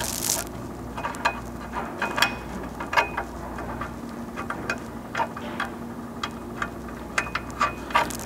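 Light, irregular metallic clicks and taps of a half-inch bolt and serrated flange nut being fitted and threaded by hand into a steel rock slider, over a low steady hum, with a short hiss at the very start.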